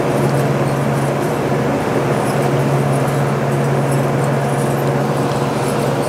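Steady, loud machinery hum with a low, even tone, and faint light clicks as a drill bit is hand-tightened into the mill's drill chuck.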